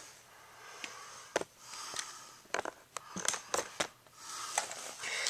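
Faint handling noise: scattered light clicks, about eight of them, and short patches of soft rustling hiss, with no steady motor sound.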